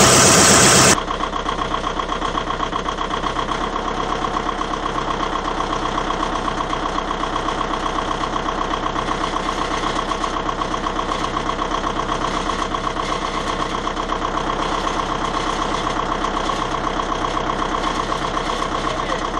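Volvo EC140 excavator's turbocharged diesel engine running steadily at idle, with an even rapid pulse, warming up after a cold start. It is louder for the first second, then drops suddenly to a steady level.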